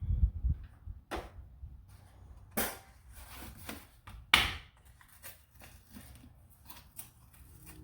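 Irregular knocks and clicks from handling things by hand, with a cluster of low thumps at the start and a few sharper strikes spread through the rest.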